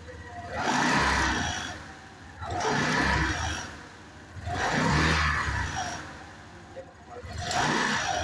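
Vehicle exhaust, tuned to make an odd sound, letting out a roar-like blast each time the throttle is blipped: four swells about two seconds apart.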